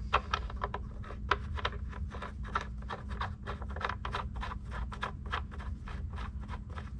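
Oil drain plug being threaded back into the oil pan of a Ford 6.0 Power Stroke diesel by hand: a quick, irregular run of short scratchy clicks from fingers and plug threads, about three or four a second, over a steady low hum.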